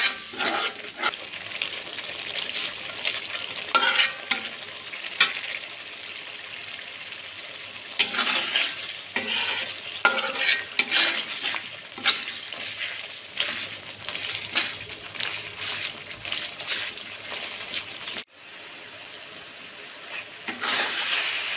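Steel spoon stirring and scraping a spice paste frying in a metal pan, irregular scrapes and clicks over a continuous sizzle as the masala is fried down with a little water. A little past three-quarters of the way through, the scraping stops abruptly and a steadier sizzle carries on.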